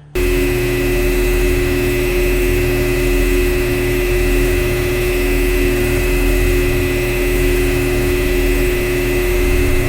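A steady machine hum: a low rumble under two steady middle tones, a high whine and even hiss. It starts and cuts off abruptly, as a single sound effect.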